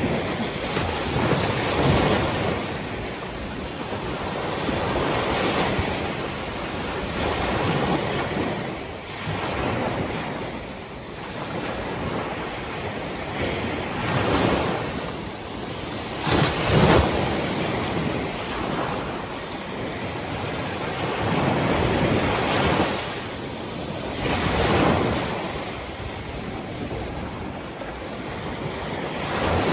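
Ocean waves breaking on a beach, the surf swelling and washing back in surges every few seconds, with one louder crash about seventeen seconds in.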